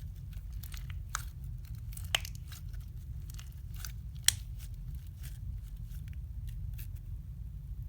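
Slime being squeezed and worked by hand, giving irregular sharp clicks and pops. A louder pop comes about two seconds in and another just after four seconds, over a steady low hum.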